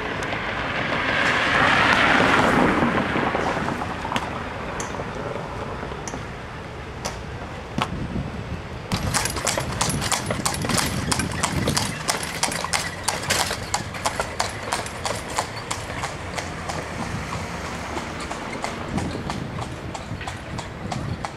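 Horse's hooves clip-clopping on an asphalt street as it pulls a carriage, a quick run of sharp strikes starting about nine seconds in. Before that, a swell of street noise rises and fades over the first few seconds.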